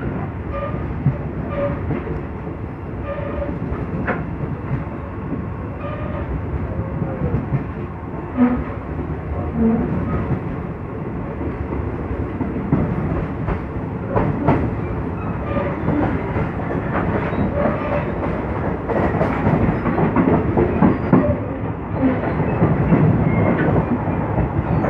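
Train rolling along the rails, its wheels clicking irregularly over rail joints under a steady rumble. It grows louder in the second half as it draws near.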